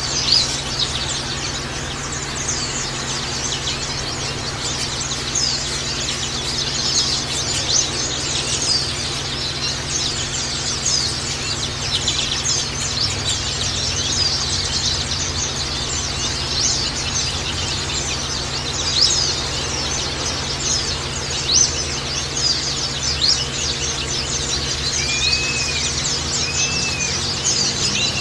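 A flock of white-eyes (Zosterops) chirping, many high, quick calls overlapping without a break. A few lower, arching calls stand out near the end.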